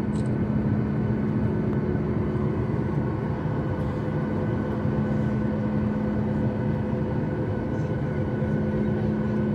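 Cabin noise of a Boeing 737 airliner held stationary on the ground with its jet engines idling: a steady drone with a few constant tones, unchanging throughout.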